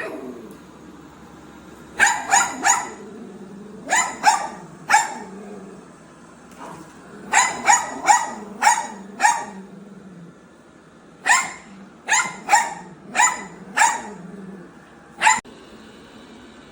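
Dog barking repeatedly: short, sharp barks in quick runs of three to five, with pauses between the runs and a single bark near the end.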